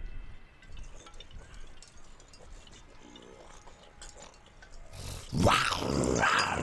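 A zombie's voice growling and snarling while it bites and chews, starting loudly about five seconds in after a few faint rustles and clicks.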